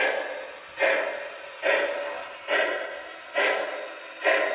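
Steam exhaust chuffs from the custom sound file of an MTH O-scale CNJ P47 Pacific model locomotive, played through its onboard speaker. They come as a slow, steady beat of about one chuff a second, each one sharp at the start and fading away.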